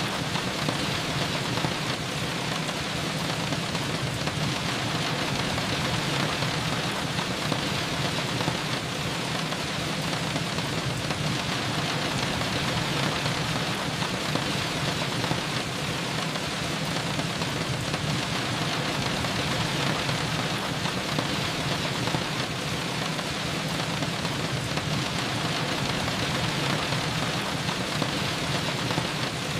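Steady rain falling, an even hiss of drops with no single sound standing out.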